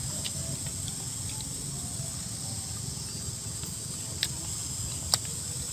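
Steady high-pitched insect chorus with a low rumble underneath and two sharp clicks near the end.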